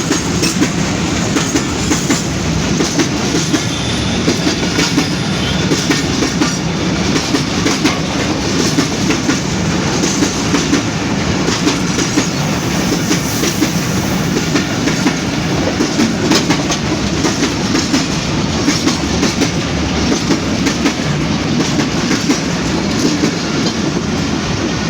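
Freight train of oil tank wagons rolling past at close range: a steady rumble with wheels clicking over the rail joints.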